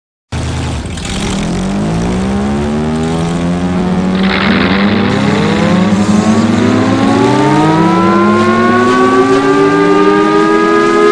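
Chrysler Victory Siren starting up: its eight-cylinder gasoline engine runs over a steady low rumble while the siren's tone winds up, several pitches rising slowly together. The sound cuts in abruptly, with a burst of hiss about four seconds in.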